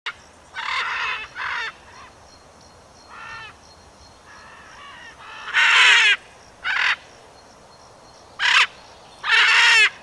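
Large parrot giving a series of harsh, raspy squawks, about eight separate calls spread over the stretch, the loudest in the middle and near the end.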